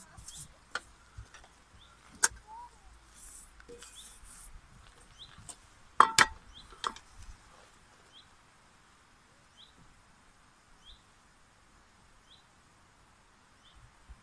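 Sharp clacks of a small pan and utensils being handled at a wooden cutting board, the loudest a double clack about six seconds in, with a plastic bag rustling. From about five seconds in, a small bird repeats a short high chirp roughly every 0.7 s.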